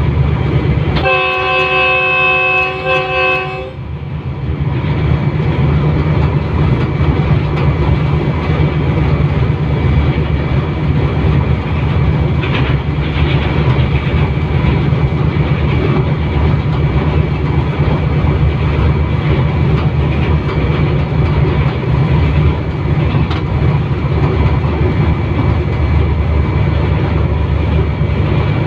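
Diesel locomotive's air horn sounding one blast of about two and a half seconds, a chord of several tones, about a second in. Then the steady low rumble of the locomotive running along the track.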